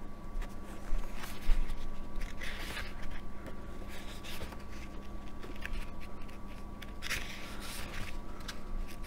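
Pages of a small paperback book being turned and handled: several short rustles of paper, the clearest about a second in, between two and three seconds in, and again near the end.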